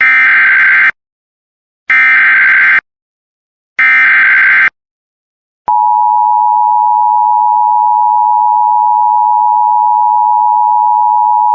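Emergency Alert System SAME header from NOAA Weather Radio: three short warbling data bursts about a second apart, then a long steady single-pitch alarm tone that starts just before the halfway point. It signals a severe thunderstorm warning about to be read.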